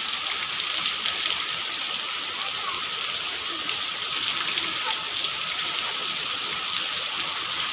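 Steady rain falling and spattering on wet ground.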